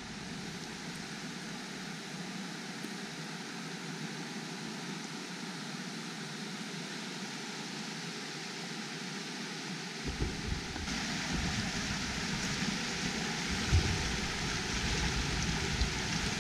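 Shallow river running over rocks and small rapids: a steady hiss of rushing water that gets louder about ten seconds in.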